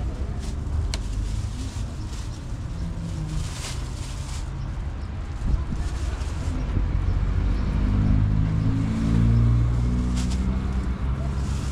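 Steady low rumble of a vehicle engine, growing louder about eight to ten seconds in, with a few short rustles of a plastic produce bag being filled with peaches.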